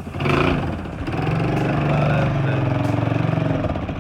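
1984 Honda ATC200M three-wheeler's single-cylinder four-stroke engine running steadily at low speed.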